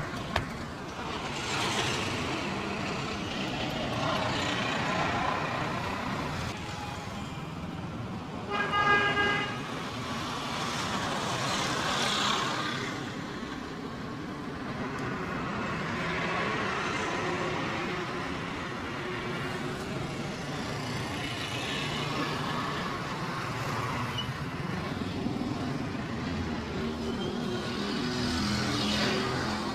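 Street traffic going past steadily, with vehicles swelling and fading several times. A vehicle horn toots once for about a second, about nine seconds in. There is a single sharp click right at the start.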